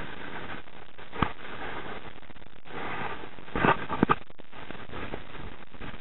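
Shallow mountain stream running steadily over rocks. A single sharp knock comes about a second in, and a quick cluster of about four knocks comes a little past the middle.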